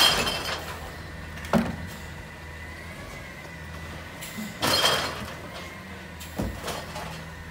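McNeilus rear-loader garbage truck idling steadily while recycling is tipped by hand into its hopper. Two rattling rushes of material pour in, one at the start and one about five seconds in, with a sharp knock after each.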